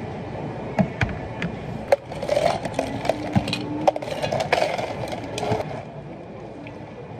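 A few sharp knocks of plastic cups being handled, then ice cubes clattering into plastic cups for several seconds. The clatter stops about six seconds in, and tea is poured over the ice more quietly near the end.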